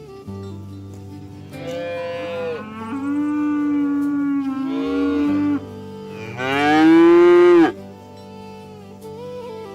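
Cattle mooing: several drawn-out calls, the last and loudest a rising-then-falling moo, over soft background music.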